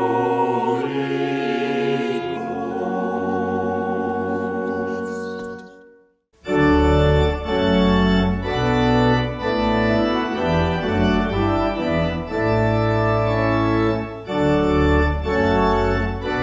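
A choir with organ holds a final chord that fades out about six seconds in; after a moment's silence, an organ starts playing a chordal piece with a moving bass line.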